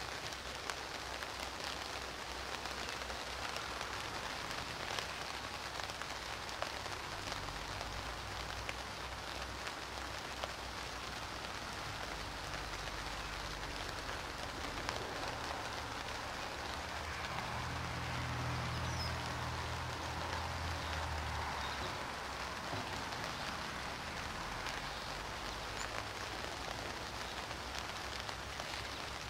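Steady rain falling, with scattered sharp drop ticks. A low hum swells for a few seconds in the middle.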